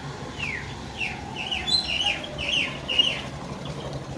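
A bird calling: a quick run of short, downward-slurred chirps, about three a second, loudest in the middle, over a steady low hum.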